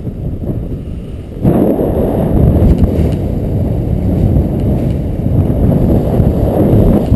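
Wind buffeting the camera's microphone: a loud, low rumble that weakens briefly and then gusts up sharply about one and a half seconds in.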